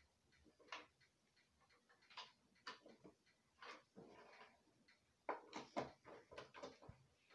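Sparse light clicks and taps of hands handling plastic wiring fittings and wires on a tabletop, with a denser run of clicks about five seconds in.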